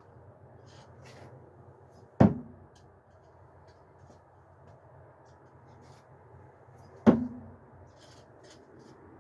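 Two no-spin thrown screwdrivers hitting the target about five seconds apart, each a sharp thunk with a short low ring from the target.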